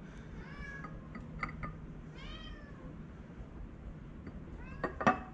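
A cat meowing three times, each call rising and then falling in pitch, over a steady low hum. A sharp knock, the loudest sound, comes near the end.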